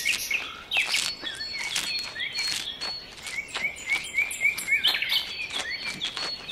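Small birds chirping: short high chirps, including a quick run of repeated chirps in the middle, mixed with scattered sharp clicks.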